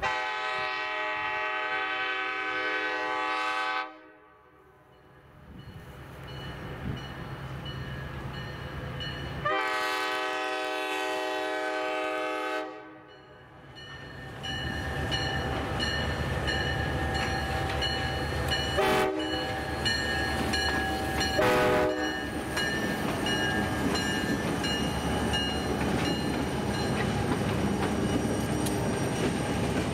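EMD GP-38 and GP-35 diesel locomotives' multi-chime air horn sounding two long blasts, then two short toots, as the train approaches. The locomotives' diesel engines then pass close by, followed by passenger cars rolling by on the rails.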